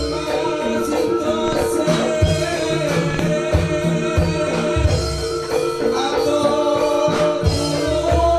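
Javanese jaranan gamelan music: sustained, slightly wavering melody lines over low drum strokes, with singing.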